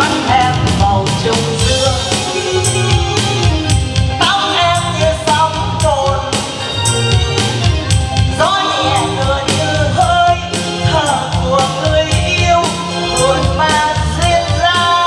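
A woman singing into a handheld microphone over amplified backing music with a steady drum beat.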